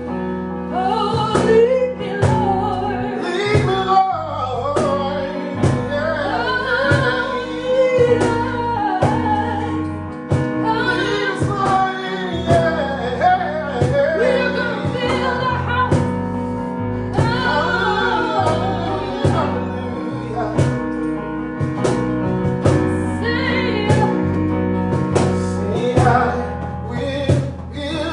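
Gospel song with a singing voice over instrumental accompaniment and a steady beat.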